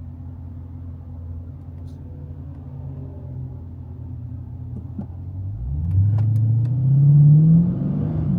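Dodge Challenger Scat Pack's 6.4-litre HEMI V8 running at a steady low rumble, then accelerating about five and a half seconds in, its pitch rising for a couple of seconds and louder, with a brief dip near the end before it climbs again.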